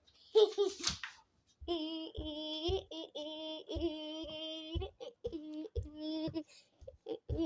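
A voice singing a run of held notes at a steady pitch, broken by short gaps, with low thumps between the notes.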